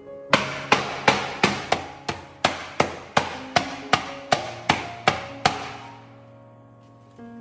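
Lemongrass stalks being pounded on a plastic cutting board with a stainless-steel pounder to bruise them: a steady run of about fifteen sharp blows, roughly three a second, that stops about two-thirds of the way through. Soft background music underneath.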